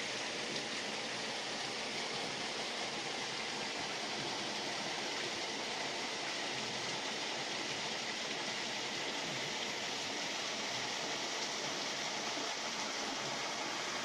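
Shallow forest stream flowing over stones and fallen branches: a steady, even rush of water.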